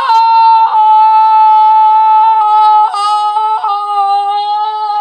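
A long, high-pitched celebratory yell of a goal: one held, nearly steady note, briefly broken and re-attacked a few times, sagging slightly in pitch.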